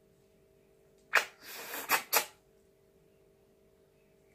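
Close-up eating noises while eating steamed fish by hand: a loud sharp smack about a second in, a short hiss, then two more sharp smacks, all within about a second. A faint steady hum runs underneath.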